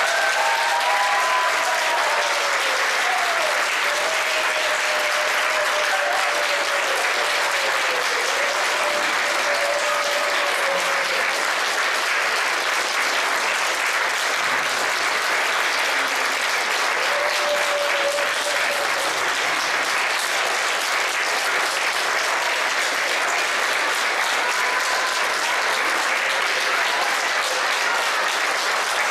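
Audience applauding steadily at the end of a dance performance, with a few voices calling out over the clapping in the first ten seconds or so.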